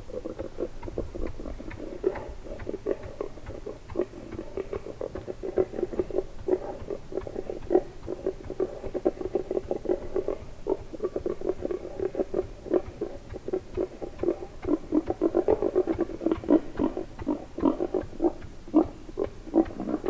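Boar grunting: a steady run of short, rapid grunts that grows louder and denser in the second half.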